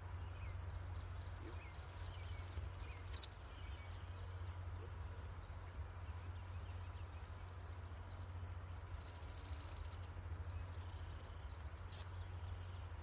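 Dog-training whistle giving two short, sharp single blasts, the sit command in heel work: one about three seconds in and a quieter one near the end.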